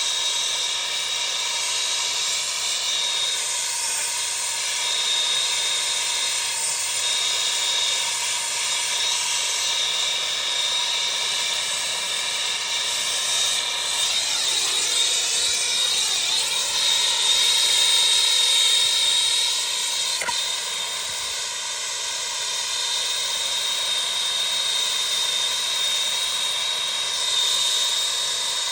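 Steady hissing roar of the heat applied while testing a water heater's temperature and pressure relief valve, with a high steady tone over it. The valve stays shut past 220 degrees, which the plumber takes for a seized relief valve.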